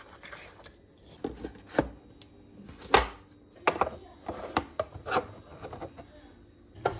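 Eggs taken from a cardboard egg tray and set one by one into a plastic egg holder in a fridge door: a string of light, irregular clicks and knocks.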